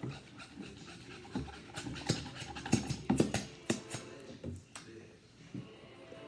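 Sticky glue slime mixture squelching and clicking as it is stirred and worked by hand, in irregular wet smacks.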